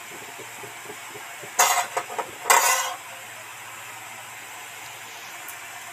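Pakoras deep-frying in hot oil in an aluminium karahi: a steady faint sizzle, broken by two short loud sizzles about a second apart, starting about a second and a half in, as lumps of gram-flour batter drop into the oil.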